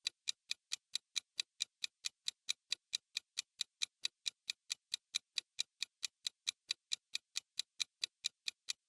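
Clock-ticking sound effect used as a quiz countdown timer: quick, even ticks at about four a second.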